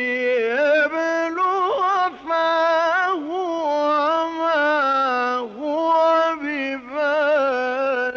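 A male reciter's voice chanting the Quran in the melodic mujawwad style. It holds long, ornamented phrases with wavering, gliding pitch, broken only by brief breaths. The tone is that of an old tape recording.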